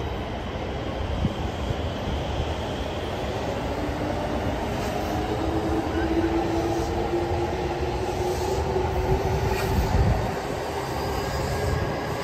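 A JR East E233-1000 series Keihin-Tōhoku Line electric train running past on a steel-and-concrete elevated viaduct. Steady rumble of the wheels and cars, with a humming tone through the middle seconds and a few light clicks.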